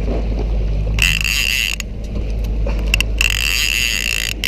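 A fishing reel sounding in two bursts of high, even buzzing, about a second each, as a hooked albacore tuna is fought to the boat, over a steady low rumble of the boat.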